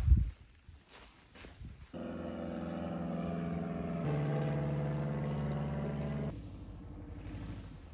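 A small propeller plane's piston engine running steadily for about four seconds, stepping in pitch once midway and cutting off abruptly. It is preceded by a sharp thump and a few footsteps.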